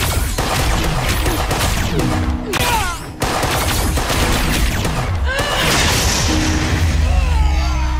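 Action-scene sound mix: a volley of gunfire and booms over a dramatic music score, dropping out briefly about three seconds in.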